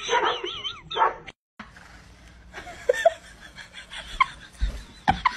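Dog barking and howling, its pitch wavering up and down, for about a second, then a brief dropout; after that, a few short, quieter whines and yips.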